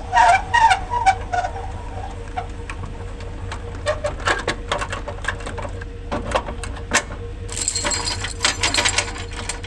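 Metal clicks and clanks as a boat trailer's coupler is latched onto a pickup's hitch, with the safety chains jingling in a dense rattle near the end.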